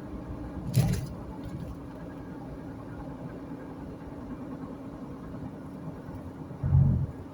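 Steady car engine and road noise heard from inside the cabin while driving on the highway. A sharp knock comes about a second in, and a louder low thump near the end.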